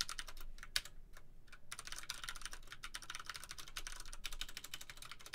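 Typing on a computer keyboard: a few keystrokes, a short pause, then a fast, continuous run of key clicks from about two seconds in.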